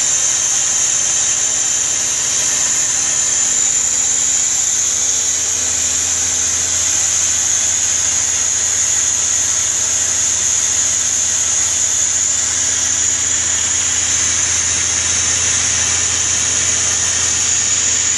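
Mazak CNC lathe turning a ball-screw thread: a steady high-pitched cutting hiss over the hum of the running machine, the low hum growing a little stronger about five seconds in.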